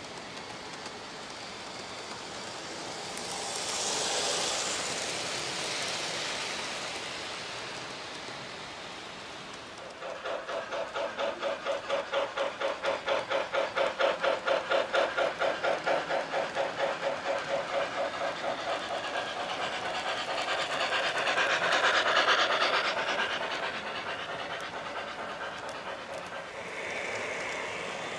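O gauge model trains rolling along the layout's track, with the noise swelling as trains pass close by. From about ten seconds in, a model steam locomotive's sound system chuffs steadily at about three chuffs a second for some ten seconds.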